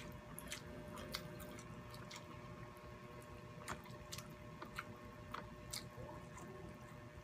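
Faint wet eating sounds: chewing and lip smacks with scattered small clicks, as hands pick at saucy baked shrimp and rice.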